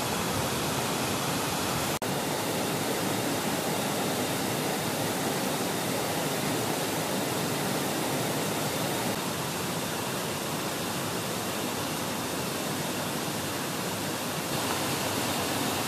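Steady rushing of a rocky mountain stream and waterfall, an even unbroken hiss of water, cut off for an instant about two seconds in.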